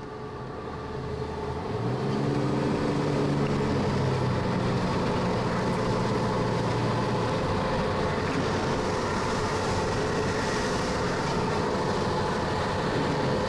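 Inside a moving vehicle at speed: engine hum with road and wind noise, getting louder about two seconds in and then holding steady.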